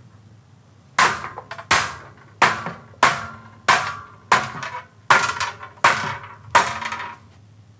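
Rubber mallet tapping a frame head insert into the channel of an aluminum sliding-glass-door frame head: about nine even blows, roughly one every two-thirds of a second, starting about a second in, each with a short ring from the aluminum.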